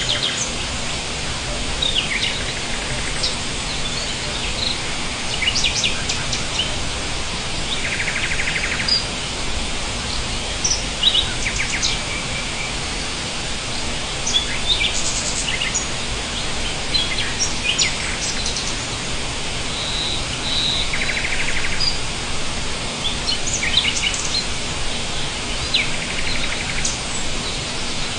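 Several small songbirds chirping and calling in short, scattered notes, with two brief rapid trills, about eight seconds in and again around twenty-one seconds, over a steady background hiss.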